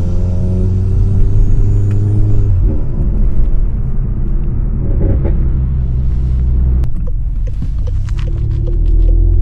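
Tuned turbocharged four-cylinder engine of a stage 3 VW Golf GTI Performance with a decat exhaust, driving under load with a gear change a few seconds in. Near the middle the throttle closes and a quick run of sharp crackles comes out, then the engine pulls again near the end.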